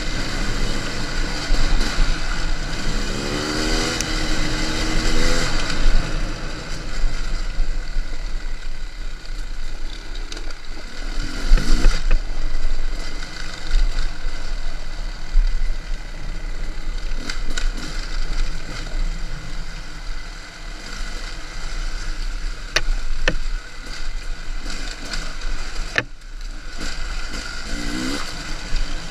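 Enduro motorcycle engine being ridden off-road, its pitch rising and falling as the throttle is worked, over a steady low rumble, with a few sharp knocks along the way.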